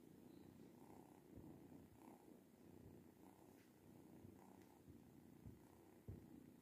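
Cat purring faintly and steadily while nursing kittens.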